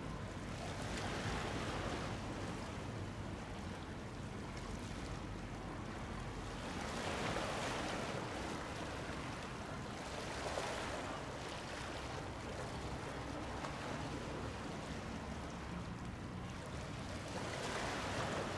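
Small waves washing in close by, swelling up four times over a steady low rumble.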